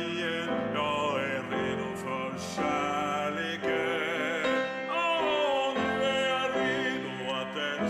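A man singing a slow song in a warm vibrato, accompanying himself on a grand piano.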